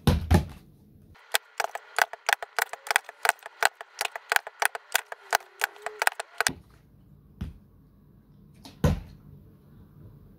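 Plastic water bottles being flipped onto a plastic milk jug on a wooden board: two hollow thuds at the start, then a rapid run of sharp clicks and knocks, about four a second for some five seconds, then two more single knocks.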